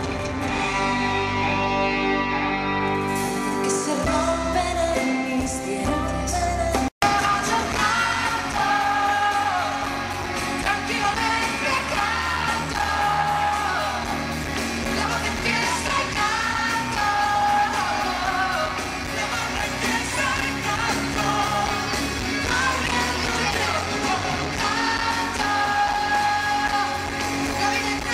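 A woman singing pop live into a microphone over a full band with electric guitar. The sound cuts out for an instant about seven seconds in, then the singing and band resume.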